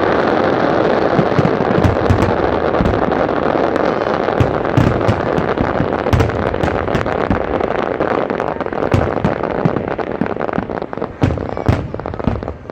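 Fireworks display: a dense, continuous barrage of crackling and popping with repeated deep booms, thinning out a little near the end.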